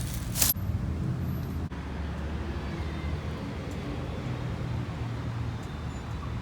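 Steady engine and road rumble heard from inside a moving car, with a brief sharp noise about half a second in.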